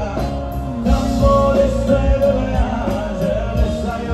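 Rock band music with singing and a steady beat.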